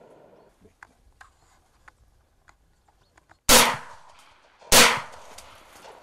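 Two shotgun shots about a second and a quarter apart, each sudden and loud with a short ringing tail. Fainter, sharp ticks come before them.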